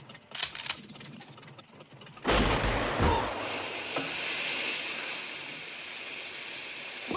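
A sudden loud blast about two seconds in, followed by a long steady hiss.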